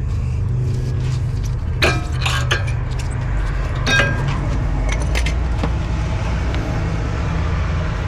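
Metal clinks of steel-backed brake pads and hardware being handled, with a few sharp clinks about two and four seconds in, over a steady low hum.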